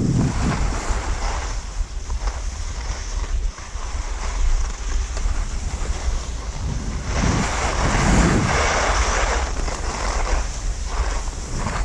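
Wind rushing over the microphone of a skier moving downhill, with the hiss of skis sliding on packed snow. The rushing grows louder about seven seconds in.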